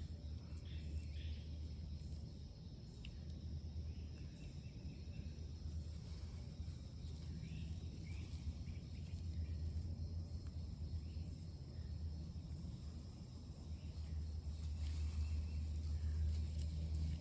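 Quiet outdoor ambience: a steady low rumble with faint, scattered high chirps.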